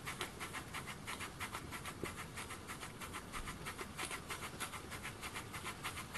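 Small RETROL model steam engine running steadily, its exhaust puffing in a quick, even rhythm. It is fairly slow revving.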